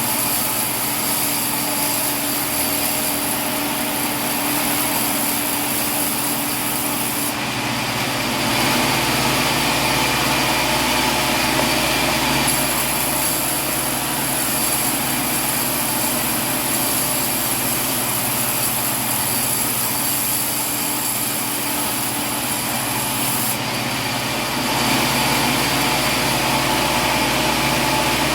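Sawmill machinery running steadily with a constant mechanical drone. The sound changes abruptly several times.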